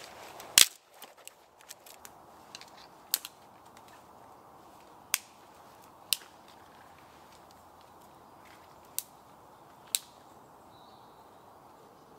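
Dead, dry sticks snapped by hand for kindling: about six sharp cracks at irregular intervals, the first the loudest, over a faint steady background hiss.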